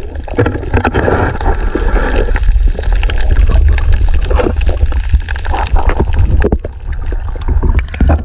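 Water noise on an underwater action camera: a steady low rumble with gurgling, sloshing and short knocks as the swimmer moves through the water.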